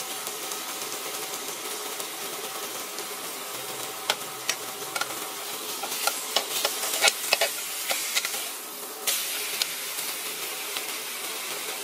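T-bone steak sizzling on a hot cast-iron grill pan. Metal tongs click and scrape against the pan in the middle as the steak is turned over. The sizzle dips briefly, then comes back louder about nine seconds in as the meat lands on the hot ridges.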